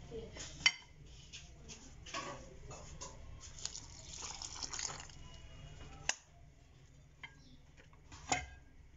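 Lemon juice poured from a drinking glass into a glass mixing bowl of grated onion and spices, the pour heard about halfway through. A few sharp clinks of glassware, one near the start, one after six seconds and one near the end.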